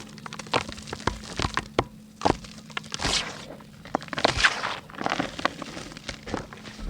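Dry pink mud (chalky clay) being crumbled by hand: a run of sharp, irregular cracks and snaps, with a couple of longer crumbly rustles as pieces break up and grind.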